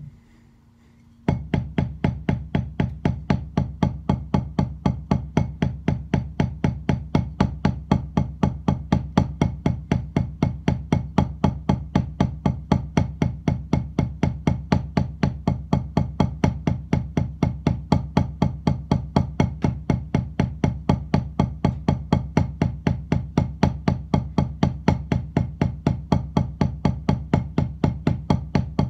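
Wooden drumsticks striking a rubber drum practice pad in a steady, even warm-up pattern, starting about a second in and holding the same tempo and loudness throughout.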